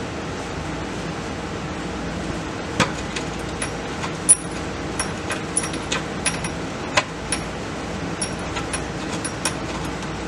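Irregular sharp metallic clicks and clinks, about fifteen over some seven seconds, from hand tools and bolts and washers being handled while a driveshaft carrier is bolted up, over a steady background hum.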